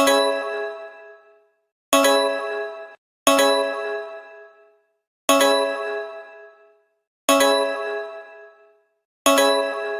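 Emergency alert alarm made of a struck bell-like chime, sounding six times at uneven intervals. Each strike rings with many overtones and fades out within about a second.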